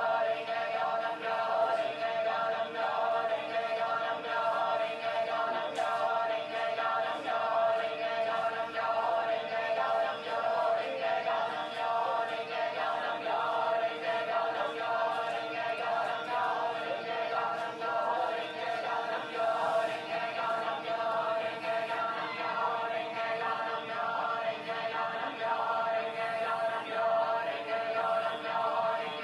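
Choir-like vocal music: a continuous wash of voices holding steady tones, with no breaks.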